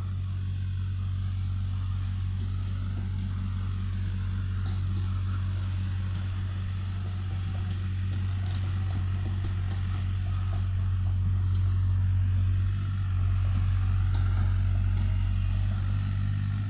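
Mini excavator's diesel engine running steadily with a low hum, growing louder about eleven seconds in, with a brief dip shortly after.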